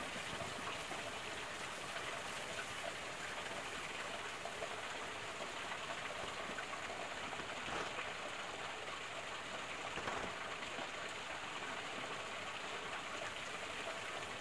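Steady hiss of running water, with a couple of faint taps about eight and ten seconds in.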